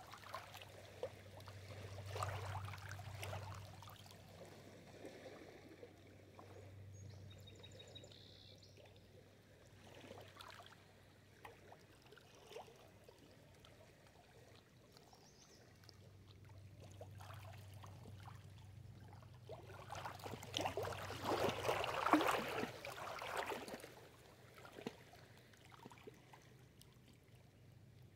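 Small lake waves lapping and splashing against a rocky shore in irregular washes, the biggest surge coming about twenty seconds in.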